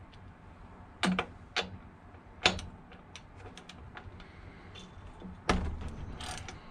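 Spark plug socket and ratchet clicking and clanking on a two-stroke leaf blower's spark plug as the socket is seated and the plug is loosened. There are a few sharp separate clicks, then a denser rattle of metal clicks near the end.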